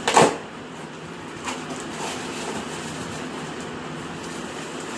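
Packaging being opened by hand: a short, loud rustling rip right at the start and a smaller one about a second and a half in, over a steady low hum.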